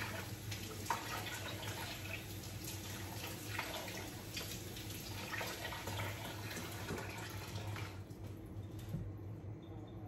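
Kitchen sink tap running with uneven splashing as food is rinsed under it; the water stops about eight seconds in.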